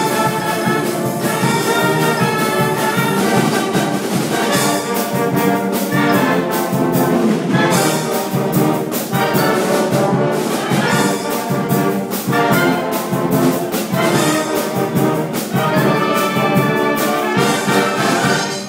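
Brass-and-reed band of sousaphones, saxophones, clarinets and trumpets, with a glockenspiel, playing a tune together with a steady beat; the music stops right at the end.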